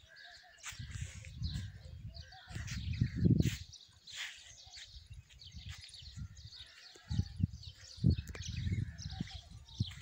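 Small birds chirping and calling in scattered short notes, with irregular low rumbles and thuds on the microphone that are loudest a little after three seconds and again around eight seconds.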